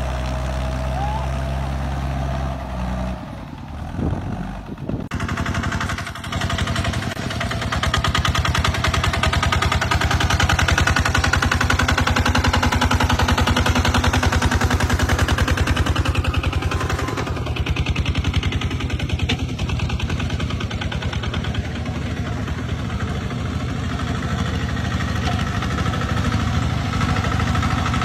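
A tractor engine running steadily, then, after a cut about four to five seconds in, the fast, even chugging of a two-wheel walking tractor's single-cylinder diesel engine.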